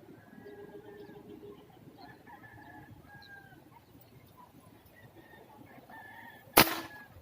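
Roosters crowing faintly in the background, then one sharp, loud crack of an airgun being fired at a fish near the end.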